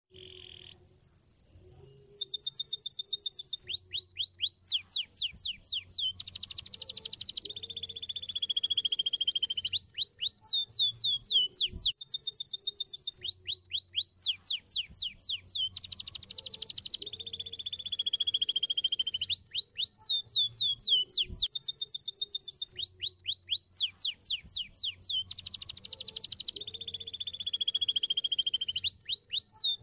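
Canary singing a fast, loud song of rapid trills, quick downward-sweeping notes and long falling whistled tones. The same run of phrases comes back about every nine seconds.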